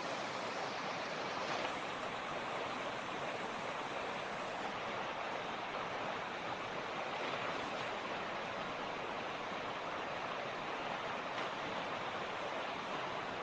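Mountain creek (torrent) running, a steady, even rush of flowing water.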